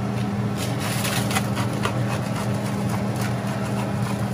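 Black pepper grinder being twisted, giving a run of irregular dry clicks and crackles over a steady low hum.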